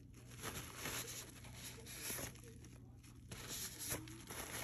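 Faint, uneven rustling of a paper towel being handled to wipe up spilled resin.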